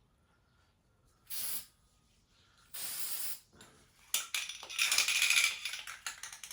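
Aerosol paint can spraying: two short hissing bursts, then clicks and a longer, louder spray starting about four seconds in.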